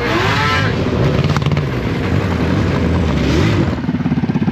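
Snowmobile engines revving, the pitch sweeping down at the start and rising again about three seconds in. Near the end a nearby sled engine settles into a fast, even pulsing run.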